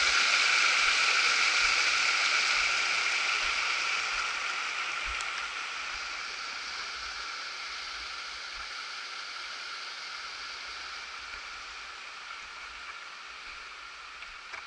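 Steady rush of running water that fades steadily as the listener moves away from it.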